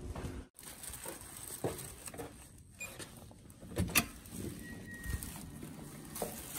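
Hotel room door's electronic key-card lock opening: a sharp click about four seconds in, followed by a short electronic beep. Faint footsteps and handling knocks come before it.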